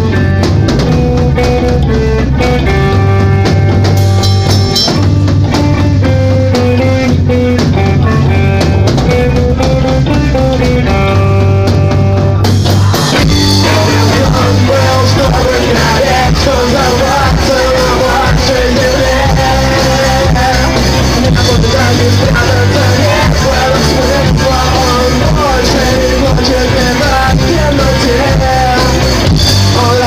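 Live rock band playing loudly, with guitars and a drum kit. About twelve seconds in, the sound fills out and a vocalist sings into a handheld microphone over the band.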